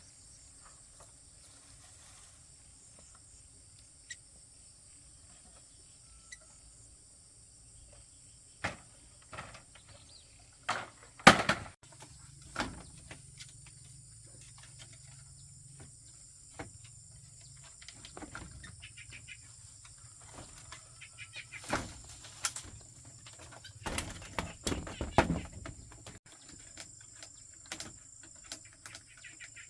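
Steady high-pitched insect drone, with scattered knocks and clatter. The loudest knocks come about a third of the way in, and a cluster follows in the second half.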